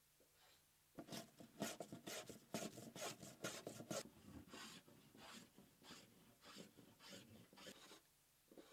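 Hand plane shaving the wooden rail of a hollow wooden surfboard, starting about a second in with a quick run of scraping strokes that thin out into slower, separate strokes after about four seconds.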